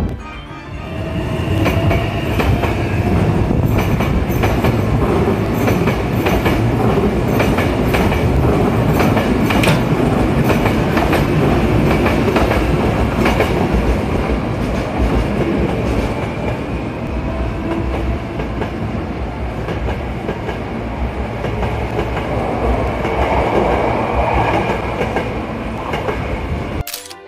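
Hankyu 1000 series electric train running along the platform, with steady wheel-on-rail noise and rapid clicking over the rail joints. A faint whine rises and falls through it. The sound builds up about a second in and cuts off abruptly just before the end.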